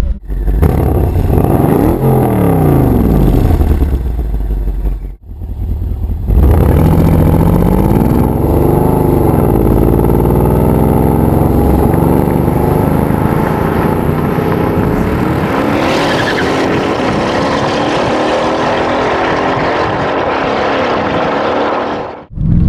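Tuned Mercedes-Benz CLS 63 AMG's V8 revved up and down a few times, then, after a brief break, a launch and a long hard acceleration with the engine note climbing steadily.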